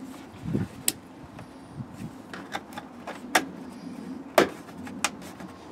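Split plastic seatbelt trim piece being worked around the belt and pressed into place by hand: a string of sharp plastic clicks and knocks, the loudest about three-quarters of the way through.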